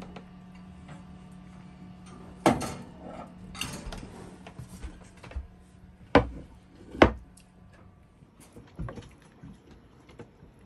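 Glass baking dish and oven rack clattering as the dish is lifted out of the oven and set down on a wooden table: a few sharp knocks, the two loudest about six and seven seconds in, over a steady low hum that stops near the end.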